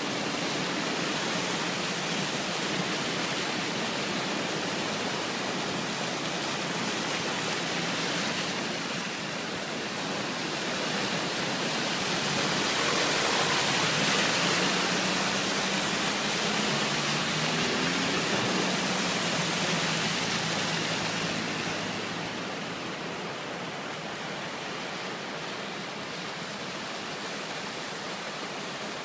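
Vehicles driving through floodwater on a road, their tyres splashing and throwing up spray over the steady rush of overflowing brook water. The splashing swells in the middle as a car and a van pass close, with a faint engine note rising.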